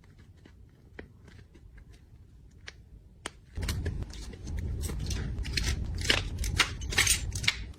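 Packing materials and items being handled by hand: scattered light clicks and taps, then from about three and a half seconds in a dense run of crinkling and rustling with sharp crackles.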